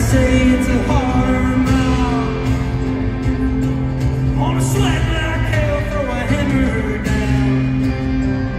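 Live band playing in an arena, with a man singing over steady sustained bass and guitar chords.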